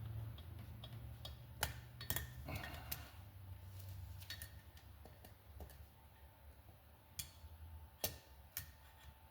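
Scattered light clicks and taps, about eight at irregular intervals, of hand tools on a motorcycle cylinder head while a valve stem seal is being worked off, over a steady low hum.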